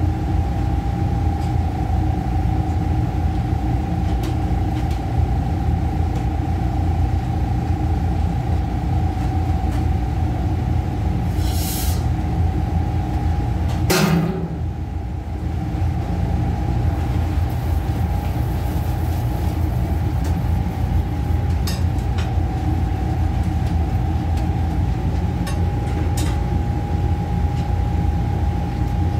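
Steady low rumble and a constant mid-pitched hum from running kitchen equipment, with a brief hiss a little before halfway and a single knock about halfway through.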